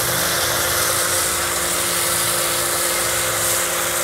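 Kärcher electric pressure washer running steadily, its motor and pump giving a constant hum, while a foam cannon on the wand sprays with a continuous hiss.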